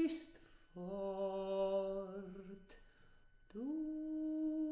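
A voice singing long, held notes with a slight waver. The first note starts about a second in and ends before the three-second mark. The second slides up into a higher pitch near the end and holds there.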